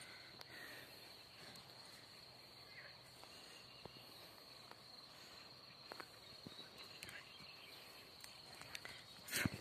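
Faint steady high-pitched chirring of meadow insects, with a few soft scattered ticks and a brief loud rustle near the end.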